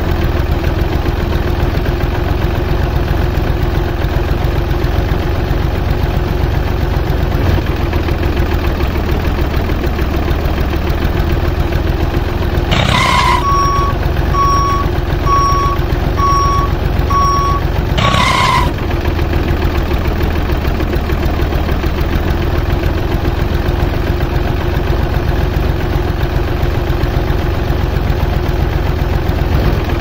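Steady engine drone of a miniature tractor. Near the middle a reversing beeper sounds about six evenly spaced beeps over some five seconds, beginning and ending with a short click.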